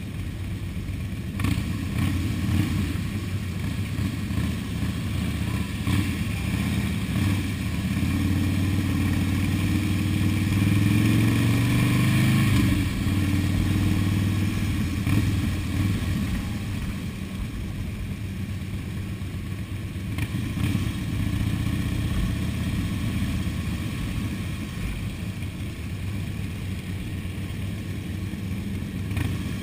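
Motorcycle engines running on the move. The engine pitch climbs through the middle as a bike accelerates, then drops back to a steady cruising rumble.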